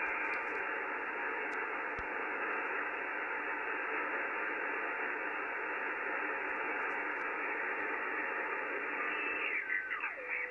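Steady hiss of band noise and interference from an Icom IC-7300 receiving on the 80 m band in LSB, which the operator puts at about S6 on the S-meter. About a second before the end the tuning dial is turned down, and signals slide quickly down in pitch.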